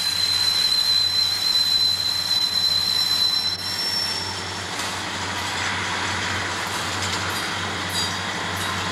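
Southern Pacific freight train's diesel locomotives rolling slowly past under a steady low engine drone. A high, wavering wheel squeal from the flanges on the curving track carries through the first three and a half seconds, then gives way to the rushing and clatter of the locomotives and freight cars going by.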